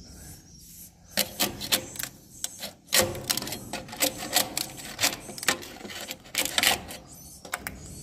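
Metal scraper blade prying and scraping a hardened swiftlet nest off a wooden nest plank, making a string of irregular sharp clicks and scrapes that start about a second in.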